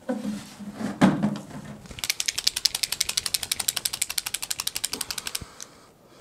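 A marker being shaken so that its mixing ball rattles: a fast, even train of clicks, about fourteen a second, starting about two seconds in and stopping after about three and a half seconds.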